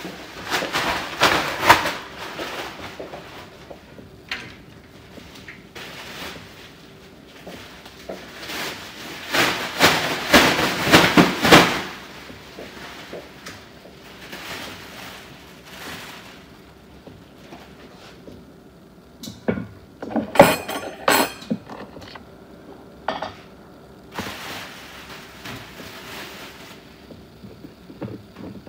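Irregular clattering and knocking of handled objects in three main bursts: near the start, about nine seconds in, and about twenty seconds in, the middle one longest. A faint steady hum runs underneath.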